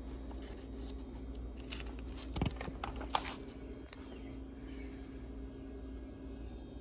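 Paper pages of a ceiling-fan installation guide being handled and turned: a short cluster of crackles and taps a couple of seconds in, over a steady low hum.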